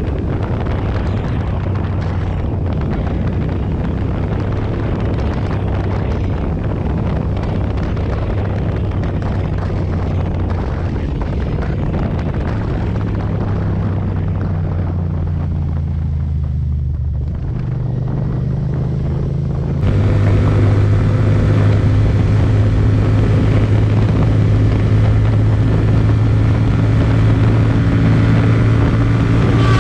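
Motorcycle engine running at a steady pace under a wide rush of wind and road noise. About two-thirds of the way through, the sound cuts abruptly to a louder, steadier engine note.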